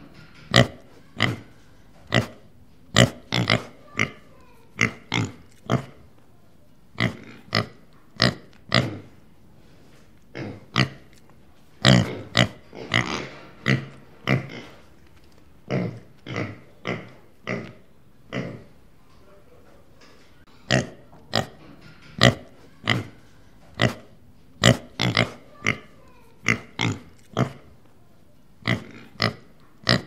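A pig grunting over and over: short separate grunts at uneven intervals, roughly one or two a second, with a couple of brief pauses.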